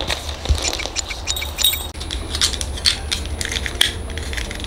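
Small hard plastic parts clicking and rattling as a plastic model kit is handled and pieced together, with many short, sharp ticks in quick, irregular succession.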